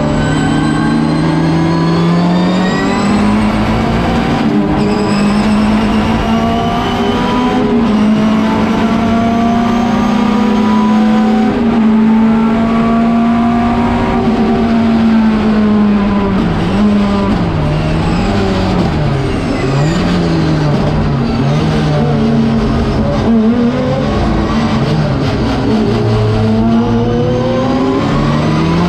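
Schnitzer BMW 320 Turbo Group 5's turbocharged four-cylinder engine at racing speed, heard from inside the cockpit. The engine note climbs early on, holds steady for several seconds, then its revs swing up and down several times in the middle and climb again near the end.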